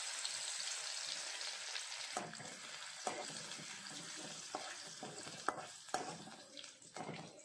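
Crushed garlic sizzling in hot oil in a steel pan: the sizzle starts suddenly as the garlic goes in and slowly dies down. From about two seconds in, a spatula scrapes and taps against the pan as the garlic is stirred.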